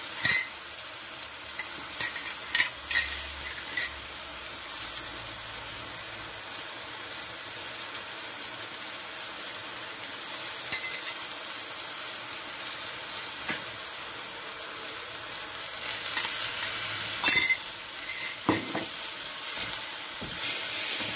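Chow mein noodles with chicken and vegetables sizzling in a wok while being stirred and tossed with a wooden spoon. The spoon knocks against the wok every few seconds, and the sizzle swells near the end as the noodles are tossed harder.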